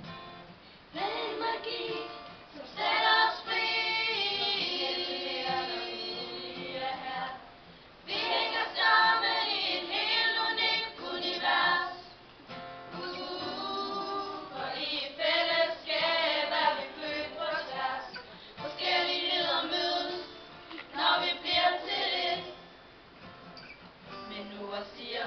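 A group of girls singing a Danish song together into microphones, accompanied by acoustic guitar, in phrases with short breaks between lines.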